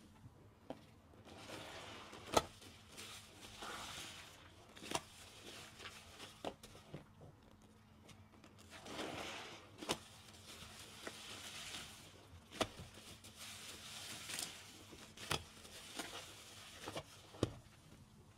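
A soapy car sponge squeezed by hand again and again. Each squeeze gives a swell of wet, crackling squelch, with sharp little pops and clicks scattered through.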